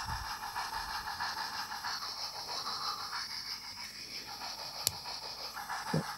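Train-Tech SFX10 model steam sound unit playing a steam locomotive's chuffing through its small speaker and amplifying tube: a tinny, fast, even chuff over a hiss. One sharp click about five seconds in.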